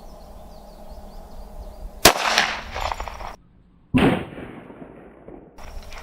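.45 ACP pistol shot from a Glock 21 about two seconds in: a sharp crack with a short decaying tail. After a brief dead silence, a second loud bang comes about two seconds later and fades away.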